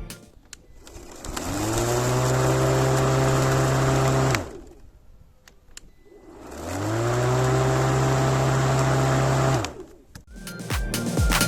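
Makita DLM330Z 18V cordless lawn mower motor and blade spinning up, running steadily, then switched off and winding down, done twice in a row with a pause between.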